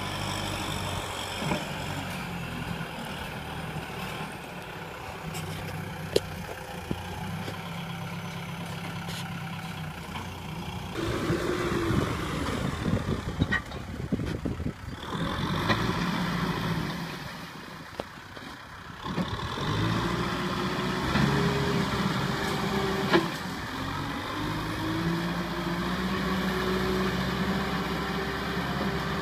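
Kubota M6040 diesel tractor engine running. It is steady at first, then revs up and down again and again under heavy load as it strains to drag a loaded trailer through mud.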